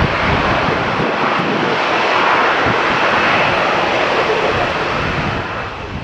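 Jet engines of a twin-engine widebody airliner running as it passes close above the runway: a steady, loud noisy roar that fades near the end.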